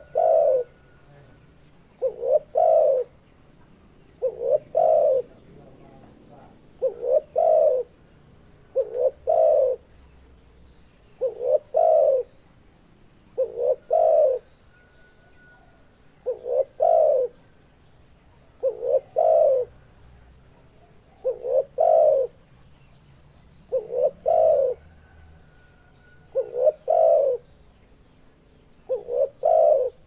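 Spotted dove (tekukur) cooing: a short phrase of a few low notes, repeated about every two seconds, thirteen times.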